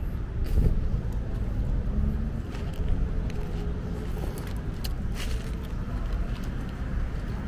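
Street traffic: cars driving by on the avenue, a steady low rumble with a few light clicks over it.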